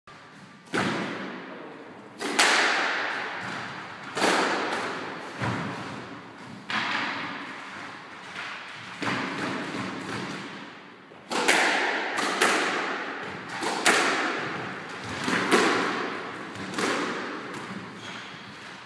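Squash rally: the ball cracking off rackets and the court walls, a sharp hit every second or two, each one echoing around the enclosed court.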